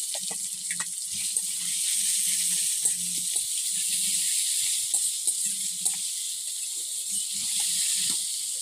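Chopped onion, tomato and garlic paste sizzling steadily in hot oil in a kadai, with scattered light clicks and scrapes of a metal spatula stirring the pan.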